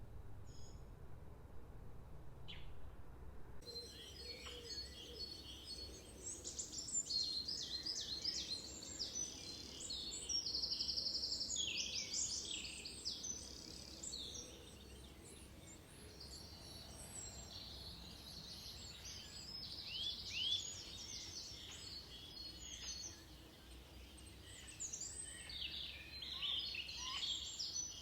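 Many songbirds singing and chirping at once, with overlapping trills and quick rising and falling calls, over a low steady rumble. For the first few seconds there are only a couple of single chirps; then the full chorus starts abruptly.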